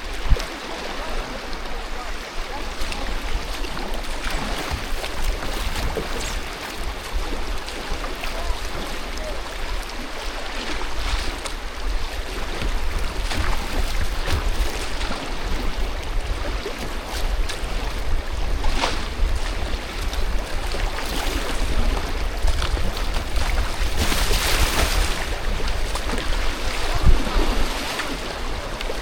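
Rushing river water in a rapid around a kayak, with scattered paddle and wave splashes and a louder splash about 24 seconds in. Wind buffets the microphone with a steady low rumble.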